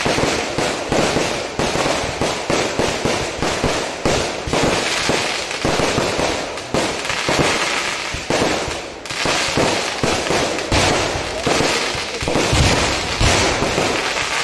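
A fireworks barrage going off in a rapid, unbroken string of bangs and crackles, with a few deeper booms near the end.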